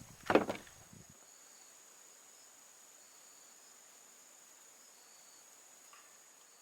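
Faint insect sounds, likely crickets: a steady high whine with short chirps every half second to a second. Before these, a brief louder sound comes just as the music ends, about a second in.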